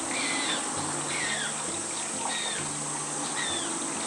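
Humboldt penguin chick begging with repeated short high peeps, each falling in pitch, over soft background music with sustained low notes.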